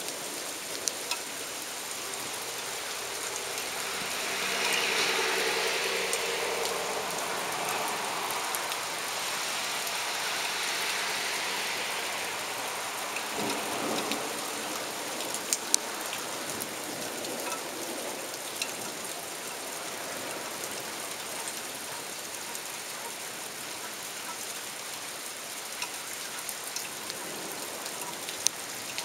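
Heavy torrential rain falling steadily, with scattered sharp drip clicks. Between about four and twelve seconds in, the sound swells louder, with a faint low hum.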